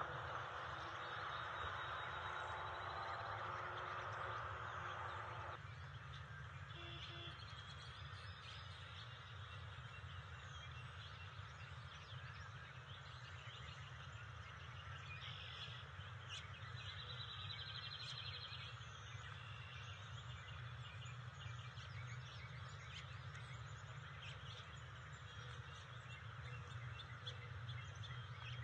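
Outdoor ambience at an eagle nest: birds singing in the background, with scattered chirps and a trill, over a steady low rumble. The background changes abruptly about five and a half seconds in.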